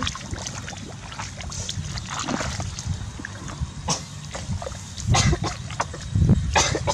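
Feet squelching and splashing through shallow mud and water in uneven steps, louder about five seconds in and again near the end.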